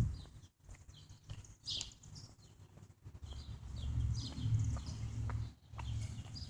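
Small birds chirping in short, high calls scattered throughout, with a low rumble that swells from about three seconds in and fades near the end.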